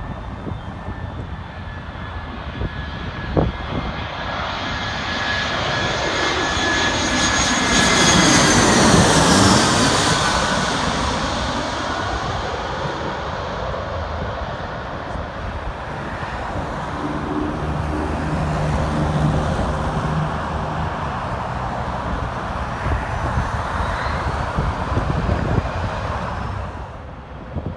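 Airbus A319 jet on landing approach passing low overhead, its turbofan engines whining and rumbling. The whine drops in pitch as it goes over, loudest about nine seconds in. Later the jet's engines are heard again from beside the runway, with a road vehicle passing near the end.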